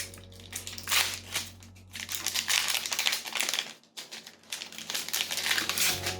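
Foil wrapper of a Pokémon trading-card booster pack being crinkled and torn open by hand, in several irregular bursts with a short lull past halfway.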